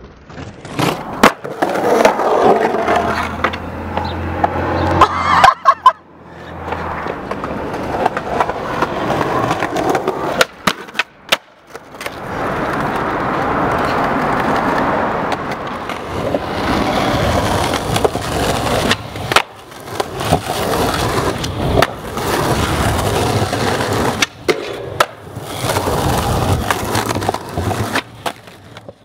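Skateboard wheels rolling over rough concrete with a steady rumble, broken by many sharp clacks from the board: tail pops, landings and the deck hitting the ground.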